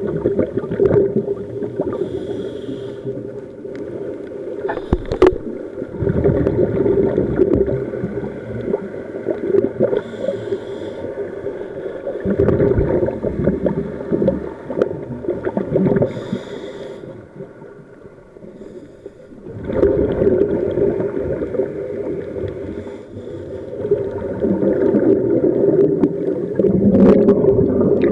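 Scuba diver breathing through a regulator underwater: long bursts of exhaled bubbles gurgle out, broken by brief hissing inhalations, a few breaths in all. A steady low hum runs underneath.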